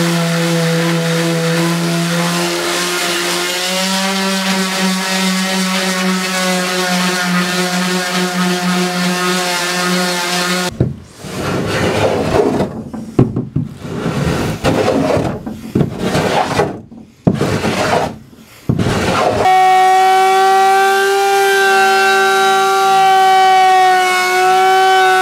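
Electric palm sander running on plywood with a steady motor hum, its pitch shifting slightly a few times. About eleven seconds in it gives way to irregular scraping strokes of hand work on the plywood edge, broken by short pauses. Near twenty seconds an electric router starts and runs with a steady high-pitched whine.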